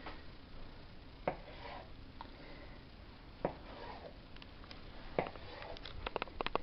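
Kitchen knife cutting through a log of rolled cinnamon-roll dough, the blade knocking on the wooden tabletop about every two seconds as each roll is sliced off. A quick run of clicks and knocks near the end.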